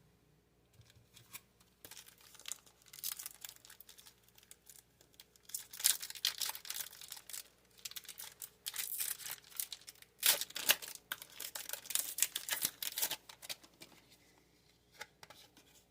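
Foil booster-pack wrapper crinkling and rustling in irregular bursts as it is handled, loudest through the middle stretch.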